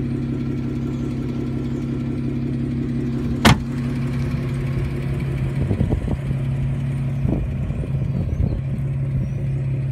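2015 Jeep Wrangler Unlimited Rubicon's 3.6-litre V6 idling steadily. A rear door slams shut about three and a half seconds in, followed by a few light knocks and scuffs.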